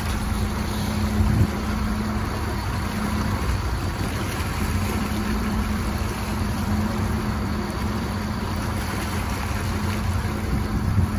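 A boat engine running steadily with a low, even hum, under a continuous rush of wind and water.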